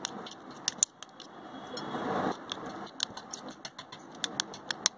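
Metal spoon stirring and mashing apple puree in a stainless steel bowl: irregular sharp clinks of the spoon against the steel, with a longer wet scraping stretch about two seconds in.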